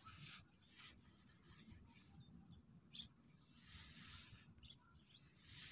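Near silence: faint outdoor background with a few soft rustles.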